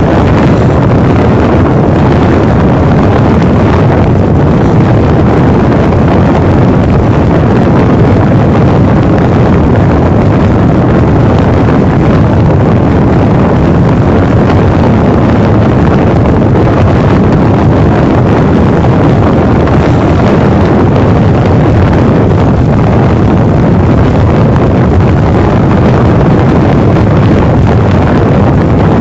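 Steady running noise of a High Speed Train (InterCity 125) at speed, heard from on board: a loud, even rumble of wheels on rails with a rushing, wind-like hiss.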